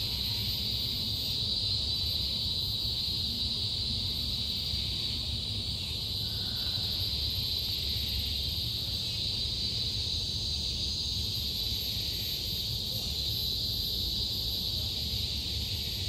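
A steady high-pitched hiss of an insect chorus, unbroken throughout, with a low rumble underneath.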